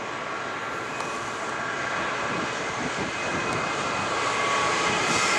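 Class 66 diesel-electric locomotive's two-stroke V12 engine working under power as it approaches, a steady drone with a whine over it, growing louder.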